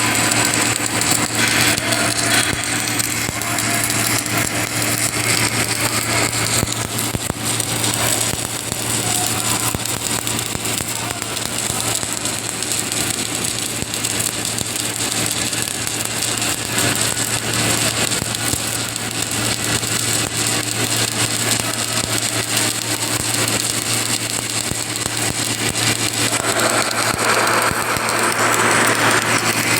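Submerged arc pipe-welding machine running: a steady electrical hum under a constant hiss.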